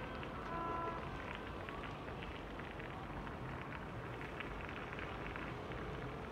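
Steady outdoor harbour ambience: a low rumble with a constant fine crackle, and a brief distant pitched tone about half a second in.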